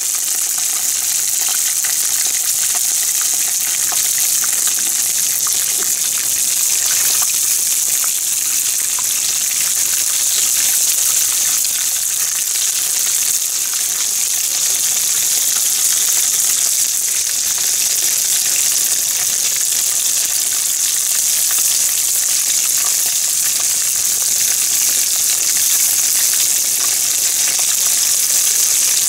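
Panko-breaded pieces deep-frying in hot oil in a frying pan: a steady sizzle with fine crackling from the bubbling oil.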